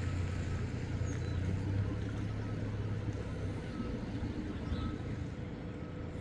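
Steady rush of a flood-swollen, fast-running creek, with a low rumble that eases a little after about three and a half seconds.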